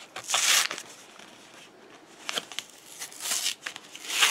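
Plastic blister packaging of trading cards being handled, crinkling and rustling in several short bursts with a few light clicks.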